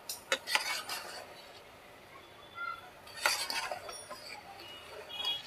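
Metal spoon scraping and clinking against the inside of a pressure cooker as broken wheat and vegetables are stirred and fried, with a few scrapes near the start and a louder run of scraping about three seconds in.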